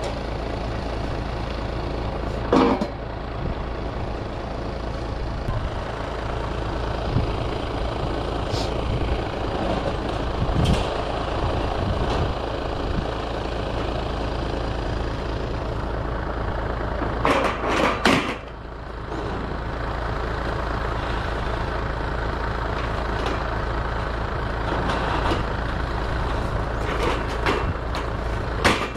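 A heavy engine running steadily, with a few sharp knocks: one about two and a half seconds in, a quick cluster about two-thirds through, and one near the end.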